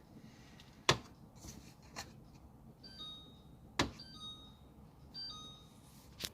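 Four sharp clicks a second or two apart, with three short, high, chime-like electronic tones in between.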